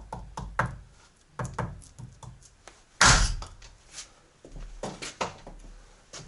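A heavy thud about halfway through, with lighter knocks and clatter around it: a new outer CV joint being driven onto the drive shaft splines with a hammer blow through a wooden block.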